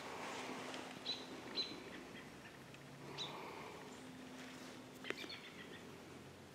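Quiet woodland ambience with a few short, high bird chirps and one sharp click about five seconds in.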